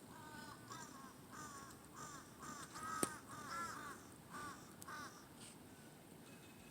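A bird calling faintly in a quick series of about ten short calls, stopping about five seconds in, with one sharp click near the middle.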